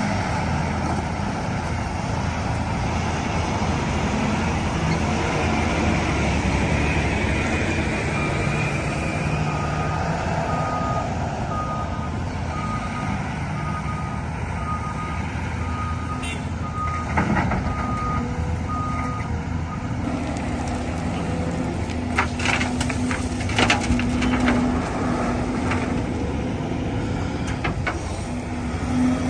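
A heavy construction machine's diesel engine running, with its reversing alarm beeping about once a second for around ten seconds in the middle. Several sharp metallic knocks come later, near the end.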